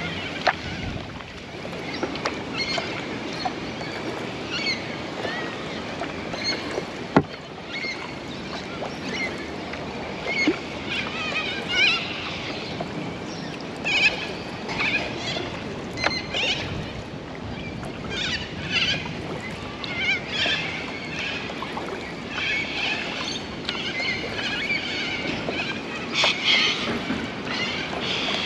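Kayak being paddled on the river: paddle strokes and moving water in a steady wash, with a few sharp knocks and repeated high chirping calls over the top.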